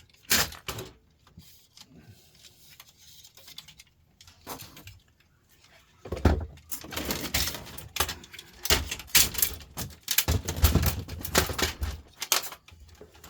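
Printer parts being handled and pulled apart, plastic and metal pieces clattering and knocking. A few sharp clicks come first, then a dense run of rattling and knocks with dull thumps from about six seconds in until near the end.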